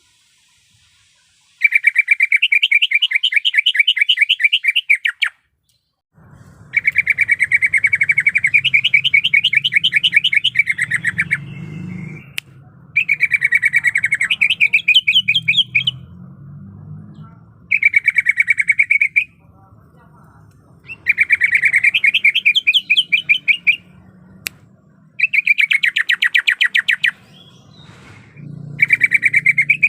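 Cucak ijo (green leafbird) singing: about seven loud phrases of rapid trilled notes, each one to four seconds long, separated by short pauses. A faint low hum runs underneath from about six seconds in.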